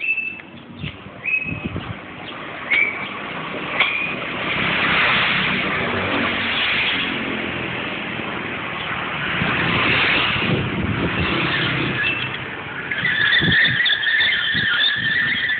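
Road traffic: vehicles passing, the noise swelling twice in the middle. There are a few short high chirps in the first four seconds and a steady high squeal from near the end.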